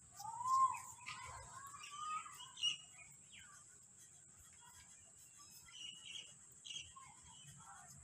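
Alexandrine parakeet giving soft vocal calls as it feeds: one long wavering call that glides up and down in the first two seconds or so, then a few faint short chirps.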